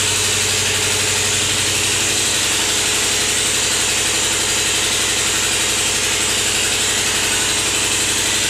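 Steady, unbroken machine hum with a strong hiss over it, like a running motor or fan.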